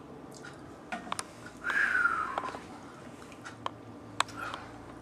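A man's short, high, falling moan about two seconds in, among scattered small clicks and mouth noises after eating.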